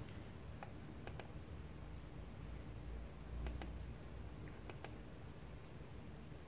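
A few faint, irregularly spaced computer mouse clicks.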